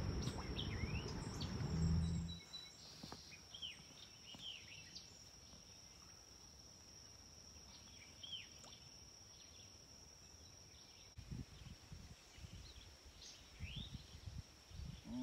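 Outdoor lakeside ambience: a steady high insect drone with a few short bird chirps scattered through. A low hum fills the first two seconds, then stops. A few low knocks come near the end.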